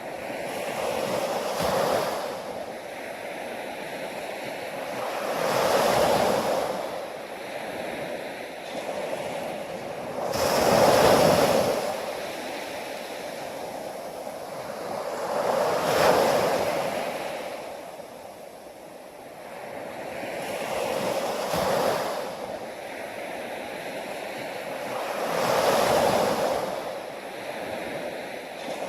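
Ocean surf: waves breaking and washing in one after another, each a swell of rushing water that rises and fades, about every five seconds.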